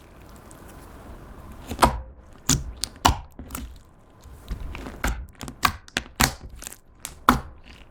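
Clear slime being squished and poked by hand, giving irregular sharp sticky pops and clicks over a soft squelching rustle.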